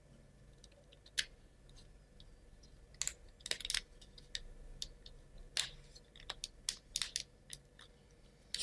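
Plywood model-kit parts clicking and tapping against each other as they are handled and fitted together, pins into slots: a scatter of sharp light clicks, bunched about three and a half seconds in and again around six to seven seconds.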